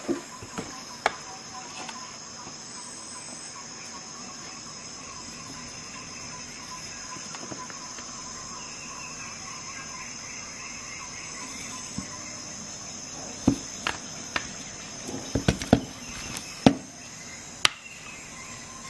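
Sharp plastic clicks and knocks as a Parkside electric stapler-nailer is handled and set against a wood block, coming in a cluster in the last third, over a steady high-pitched whine and hiss.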